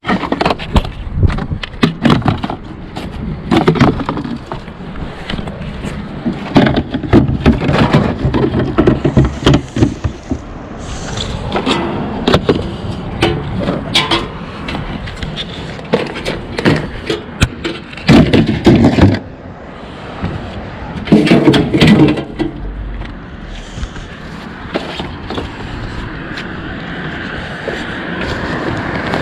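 Scrap metal and junk being handled and loaded: irregular clanks, knocks and scrapes, with rumbling between them.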